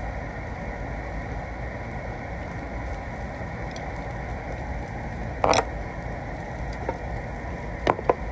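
Steady background noise of a restaurant meal, with a few sharp clinks of utensils: one a little past halfway and two close together near the end.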